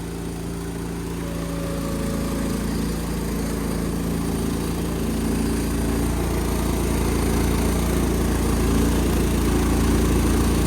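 1999 Cub Cadet HDS 2135 riding mower's engine running steadily just after a cold start, growing gradually louder.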